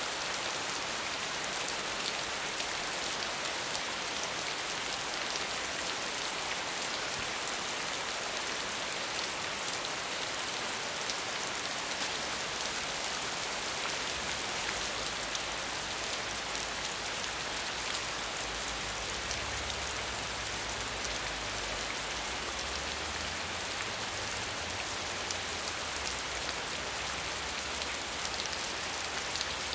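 Steady medium rainfall: an even hiss of rain with a fine patter of drops. A faint low rumble comes in about halfway through.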